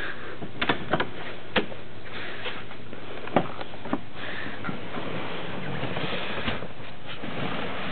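A handful of sharp clicks and knocks at irregular intervals, bunched in the first half, over a steady hiss.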